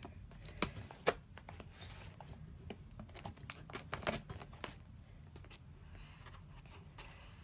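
A small cardboard shipping box being opened by hand: scattered tearing and scraping of tape and cardboard with sharp clicks, the loudest a second in and again about four seconds in.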